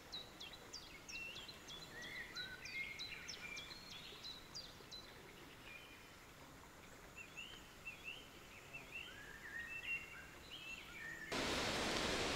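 Small birds singing: a run of quick, high, down-slurred notes, then lower up-slurred calls. About eleven seconds in, a louder steady rushing noise cuts in suddenly.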